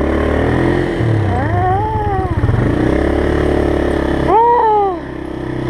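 ATV engine idling with two throttle revs, the pitch climbing and falling back each time; the second rev, near the end, is the louder and sharper. The engine is gunned to lift the front wheels for a wheelie.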